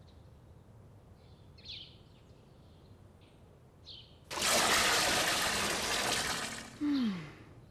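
Water poured from a wooden bucket into a large vat: a rushing splash lasting about two and a half seconds, starting a little past halfway. Before it, faint bird chirps; right after it, a short sound falling in pitch.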